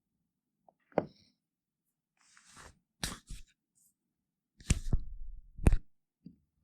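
A series of separate sharp knocks and clacks with a short rustle between them, as of wooden parts being handled and set down; the loudest knock comes about two-thirds of the way through, with a low rumble after it.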